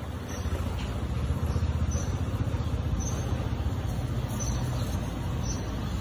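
A steady low rumble of background noise, a little louder after the first half second.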